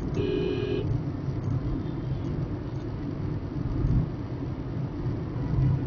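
Steady low road and engine rumble of a car driving at highway speed, heard from inside the cabin. A short electronic tone sounds for under a second right at the start.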